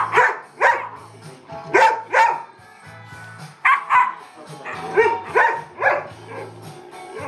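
Dogs play-fighting with sharp play barks, about ten of them in quick clusters of two or three. Background music with a steady bass line runs underneath.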